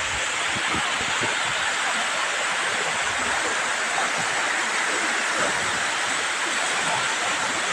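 Waterfall with falling water rushing steadily, an even hiss of water with no breaks.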